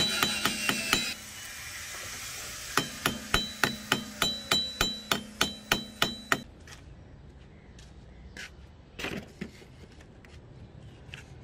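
Ball-peen hammer peening the rivet heads on a steel spear socket laid on a steel block: rapid light metallic strikes, about four a second, each with a brief ring. The strikes stop after about a second, resume after a short pause and stop about six seconds in, leaving only a few faint clicks.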